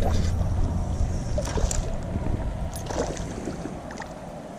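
Low rumble on a chest-mounted camera's microphone, from wind and handling while the angler works a hooked fish, fading after the first second or two, with a few faint clicks and rustles.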